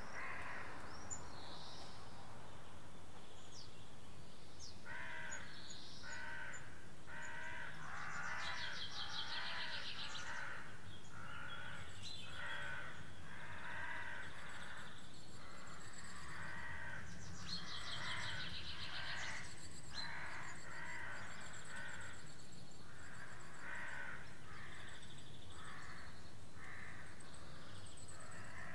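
Corvids cawing in a long series of repeated harsh calls, starting about five seconds in, with a small songbird giving a high trill twice, over a faint steady low rumble.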